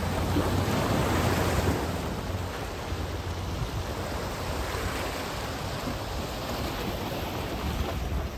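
Steady wind rushing over the microphone, with low buffeting that is strongest in the first two seconds.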